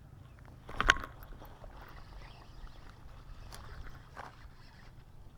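A single short splash in the water about a second in, then faint small knocks and rustles over a steady low hum.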